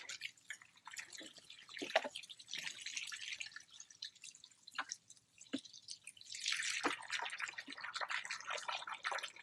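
Wash water trickling and dripping out of the drain tube of an Avalon Bay EcoSpin hand-powered spin washer, with occasional light plastic clicks and knocks as its lid is lifted off and the basket is handled.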